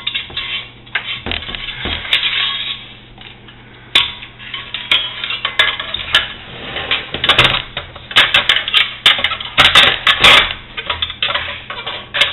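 Metal burner parts clinking, scraping and knocking as the inner assembly of a Beckett oil burner is worked into its housing, with irregular clicks and rattles that grow busier in the second half.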